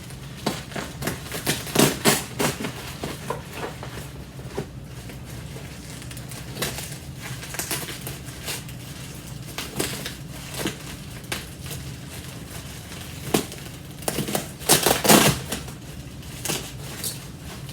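Packing material being handled and pulled apart by hand: irregular crinkling, crackling and clicking, louder about two seconds in and again near the end.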